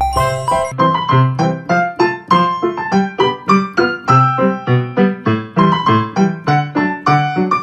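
Background music: a keyboard melody of struck notes at a steady pace, about four notes a second.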